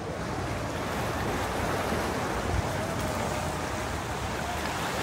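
Steady outdoor ambience on a seafront promenade: an even, constant wash of noise with no distinct events.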